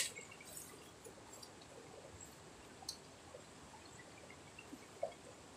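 Faint, steady rush of a shallow rocky river, with a sharp click right at the start and a few small clicks and rustles after it.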